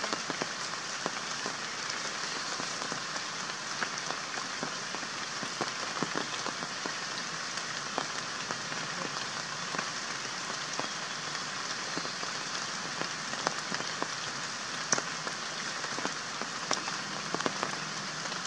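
Steady hiss of light rain with many faint, irregular ticks of drops pattering on foliage.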